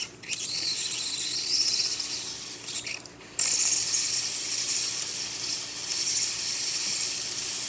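Steam hissing from an espresso machine's steam wand (Breville Barista Express) as the thermoblock reaches steam temperature; the hiss dips about three seconds in, then comes back louder and holds steady.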